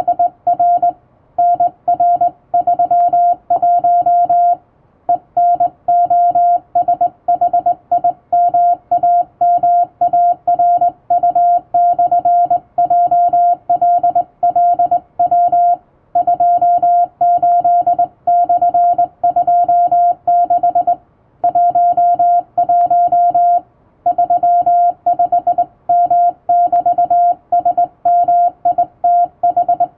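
Hand-sent Morse code on a straight key: a steady mid-pitched beep keyed on and off in quick dots and dashes, with short gaps between characters and a few longer pauses between word groups.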